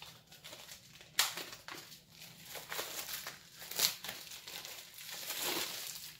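Clear plastic wrap being torn and peeled off a hardcover comic book, crackling and crinkling, with a sharp rip about a second in and a louder crackle near four seconds, then a longer rustle as the wrap is pulled away.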